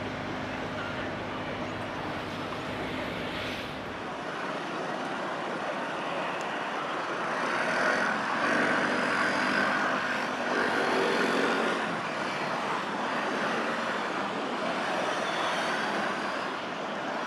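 Trams on street track: a steady low hum for about the first four seconds, then after a sudden change a louder running noise with faint whining tones as trams approach, loudest a little past the middle.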